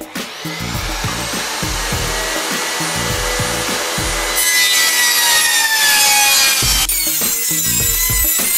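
Homemade 12-volt saw, a 775 DC motor driving the blade through a GT2 pulley and belt, spinning up and cutting a thin wooden board. It winds up at the start and settles into a steady whine with the rasp of the blade. From about halfway it gets louder as the blade cuts the wood, and the whine sinks in pitch.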